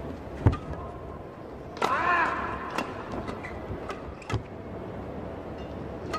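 Badminton rally in an arena hall: sharp racket strikes on the shuttlecock at irregular intervals, the loudest a thump about half a second in, over a steady hall din. About two seconds in there is a short wavering pitched sound.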